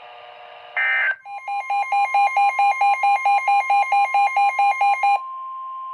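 Emergency Alert System tones from a NOAA Weather Radio broadcast. About a second in comes a short burst of warbling SAME data tones. Then the steady Warning Alarm Tone of about 1 kHz sounds, with a beeping alarm pulsing about four times a second over it for about four seconds, after which the steady tone continues alone.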